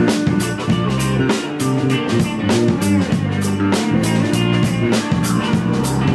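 Live rock trio playing an instrumental passage without singing: electric bass, electric guitar and drum kit together over a steady drum beat.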